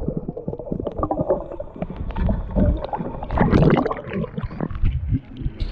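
Muffled underwater sloshing and bubbling of pool water around a submerged camera, with louder splashing about three and a half seconds in.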